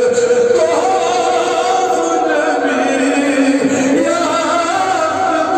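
A solo voice chanting a slow, melismatic melody, holding long notes that slide up and down between pitches.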